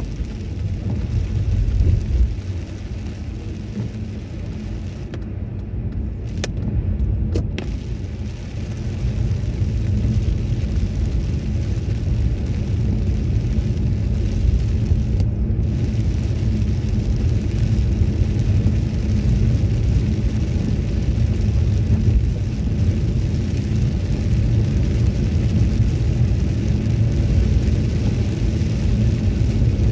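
Inside the cabin of a Toyota Celsior (UCF31) driving on a wet road in rain: a steady low road rumble with tyre hiss on the wet surface. It grows louder over the first ten seconds as the car picks up speed, then holds steady.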